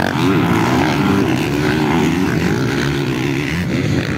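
Several motocross bikes racing past together, their engines revving up and down as the riders work the throttle, the overlapping engine pitches rising and falling.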